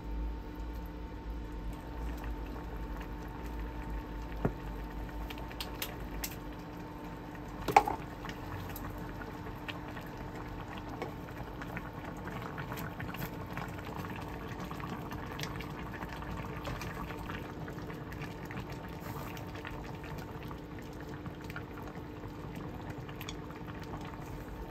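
Liquid bubbling at a boil in a pot on the stove, a steady bubbling with small pops over a faint steady hum. One sharp click comes about eight seconds in.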